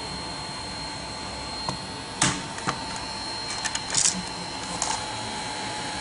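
Small bladeless USB desk fan's motor running with a steady whir and a thin high whine, while its plastic housing gives several sharp clicks and knocks as it is handled, the loudest about two seconds in and a cluster around four seconds.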